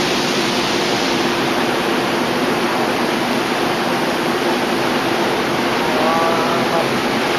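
Boat engine running with a steady low hum under a continuous rush of wind and water noise. A faint voice is heard briefly about six seconds in.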